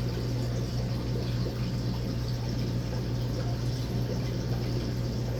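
Running aquarium: a steady low electrical hum with the constant trickle and bubbling of water from the tank's filter.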